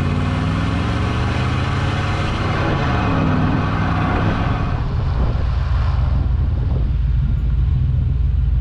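1995 Chevy Tahoe driving, recorded from under the truck: engine and exhaust note rising in pitch as it accelerates, dropping about three seconds in, then running steadily. Heavy tyre and road rumble underneath.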